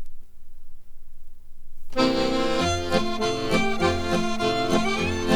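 Folk instrumental music led by an accordion, starting abruptly about two seconds in after a brief lull. It plays steady chords to a regular beat.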